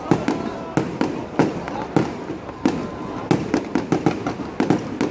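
Fireworks going off in a rapid, irregular string of sharp bangs, several a second.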